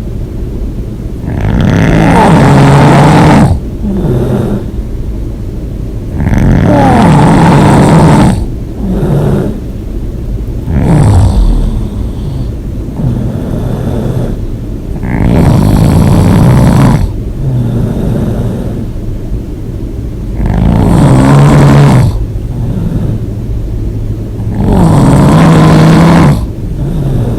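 A person snoring hard with the mouth open: a loud snore comes about every four to five seconds, each lasting one to two seconds.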